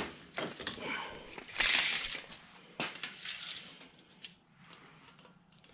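Hand tools being moved on a cluttered workbench and a tape measure pulled out, with a knock at the start, a scraping rustle about a second and a half in, then a few light clicks.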